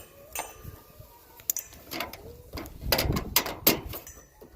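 Plastic light clips and bulbs of a string of clip-on Christmas lights clicking and rattling as it is handled and clipped in place. A burst of sharp clicks comes about three seconds in.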